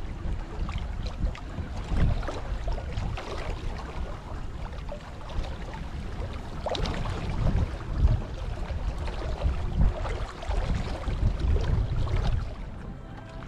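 Wind buffeting the microphone in irregular gusts over the rush and splash of water along a small sailing yacht's hull while under sail. It eases near the end.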